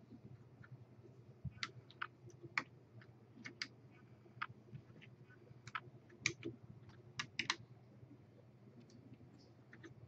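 Faint, irregular light clicks and taps of small computer hardware being handled: the screws and plates of a RAM water block being fitted. A low steady hum runs beneath.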